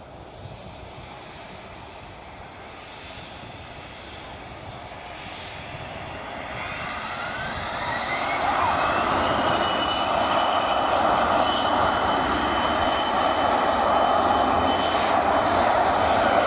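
Twin Rolls-Royce AE 3007 turbofans of an Embraer ERJ145 spooling up: a whine rises in pitch and settles into a steady high tone as the jet roar grows much louder, the sound of the engines coming up to takeoff power.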